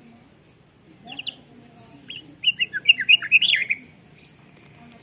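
White-rumped shama (murai batu) singing: a short phrase about a second in, then a fast run of varied whistled notes lasting about a second and a half.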